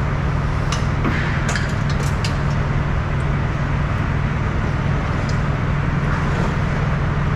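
A steady low mechanical hum, with a few short clicks and light metal rattles as the tarp's hooks and bungee straps are handled on the trailer deck, several of them close together about a second in.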